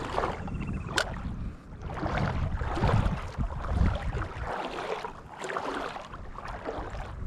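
Wind rumbling on the microphone, swelling and dropping, over a haze of water and outdoor noise, with one sharp click about a second in.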